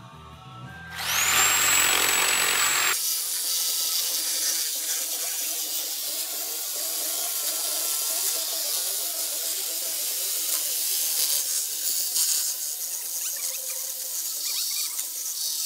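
Corded reciprocating saw starting up with a high motor whine about a second in, then cutting through a steel vehicle frame rail, a steady noisy rasp of the blade on metal.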